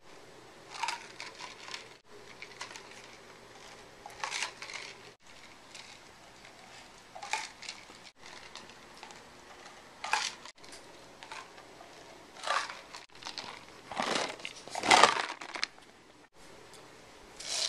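Irregular crinkling and rustling in short bursts, the loudest a little before the end, broken by several abrupt cuts.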